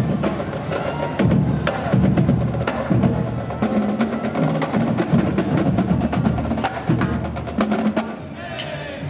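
Marching band drumline playing a street cadence on snare and tenor drums, with rapid sharp clicks over the drumming.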